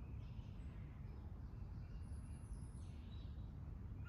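Outdoor woodland ambience: a steady low background rumble with faint bird chirps, one a brief high thin note about two seconds in.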